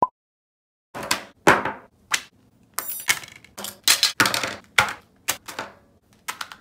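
A short beep, then more than a dozen separate sharp knocks and clatters of objects being set down one after another on a wooden tabletop, with a brief rapid rattle about three seconds in.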